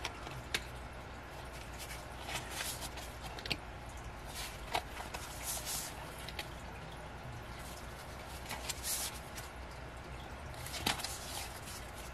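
Paper and card being handled: brief rustles and scattered light taps and clicks as album inclusions such as postcards are sorted through, over a low steady hum.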